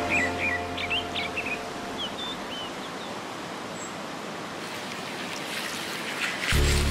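Water spilling over a small stone weir on a millrace, a steady rushing hiss. A small bird chirps several times in the first second or so, soft background music fades out early, and music with a heavy bass comes in near the end.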